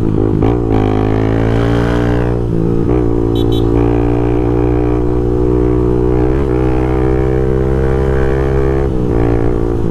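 Honda Twister 250 single-cylinder motorcycle engine with a sport exhaust, running at steady high revs, with brief dips in pitch a few times. Wind rushes over the microphone throughout.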